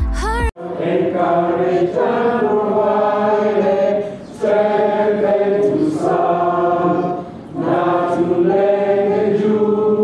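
A group of people singing together, live in the room: long held notes in phrases of a few seconds, with two short breaks for breath.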